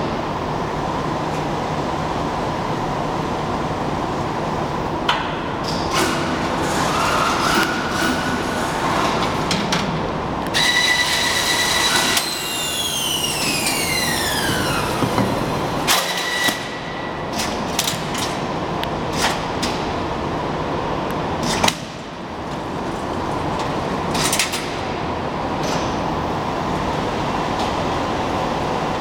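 Horizontal strapping machine running through its cycles: steady machine noise broken by sharp clicks and knocks. About halfway through, a whine starts and then falls in pitch over a few seconds.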